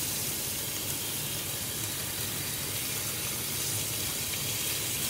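Bacon frying in a pan, a steady sizzle.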